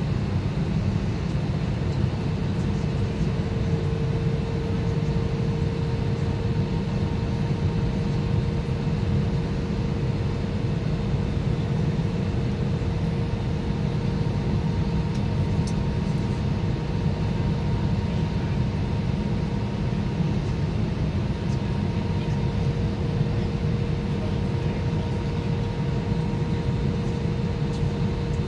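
Airbus A320 cabin noise in flight: a steady, deep rushing drone of engines and airflow, with a constant mid-pitched hum running through it.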